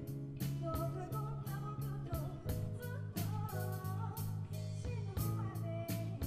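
A live band playing a rock song: a steady drum beat under bass and guitar.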